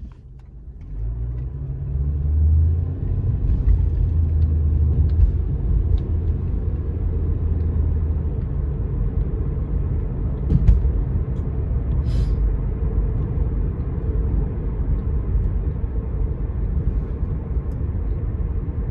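Car cabin noise while driving: low engine and road rumble that builds over the first couple of seconds as the car gets going, then holds steady. There is a single brief knock about ten seconds in.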